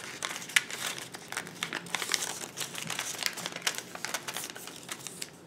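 A sheet of origami paper being folded and creased by hand on a wooden table: irregular crinkling and rustling with many quick scratchy clicks as the folds are pressed flat.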